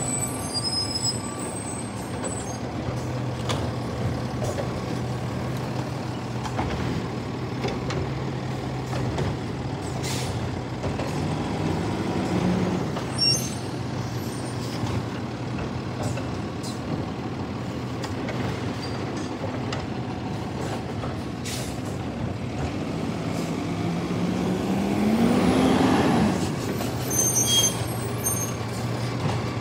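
Diesel engine of a recycling truck idling steadily at close range, with a few short sharp sounds. It speeds up briefly about twelve seconds in, then revs up higher and louder near the end before dropping back to idle.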